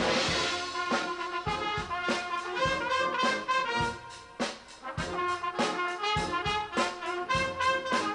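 Brass band playing a tune over a steady drum beat.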